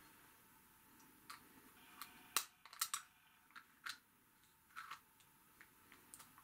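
Light clicks and taps from a small metal Matrix of Leadership piece being turned over and worked in the fingers, a scattered handful of them, the sharpest about two and a half seconds in.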